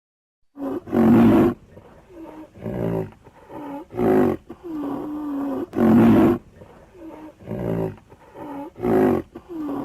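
A large animal calling over and over: four loud, full calls about two to three seconds apart, with softer calls between them that dip and then hold in pitch.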